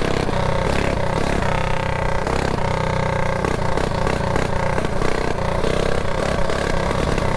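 Mini bike engine running steadily under way, loud and close, with a slight rise and fall in pitch and some clatter.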